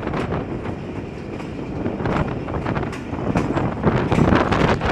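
Passenger train running over a river bridge, heard from an open coach doorway: a steady rumble of wheels on rail with irregular clicks and clacks, growing louder near the end.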